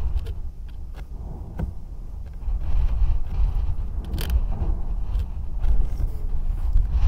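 Gusty wind ahead of an approaching thunderstorm buffeting the microphone with a deep, uneven rumble that swells about halfway through. A few sharp clicks or taps sound over it, the loudest a little after the middle.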